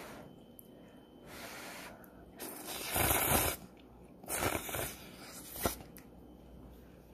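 Ramen noodles being slurped from the bowl: a series of airy slurps, the loudest and longest about three seconds in.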